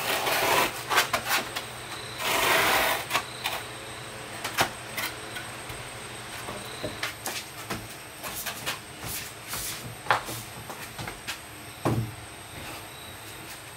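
Heavy solid-wood table legs and blocks knocked and scraped on a concrete floor as they are shifted into place. There is a scrape of about a second a couple of seconds in, scattered clunks, and a heavier thump near the end.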